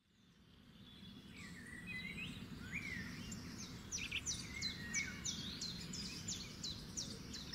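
Outdoor ambience of birds singing over a steady low rumble, fading in from silence. One bird repeats a high, down-slurred note about twice a second through the middle, among scattered rising and falling whistles from others.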